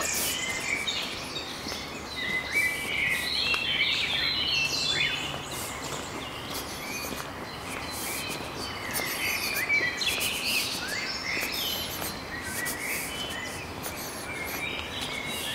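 Small birds chirping in short, scattered calls over a steady outdoor background hiss, busiest from about two to five seconds in and again from about nine seconds in.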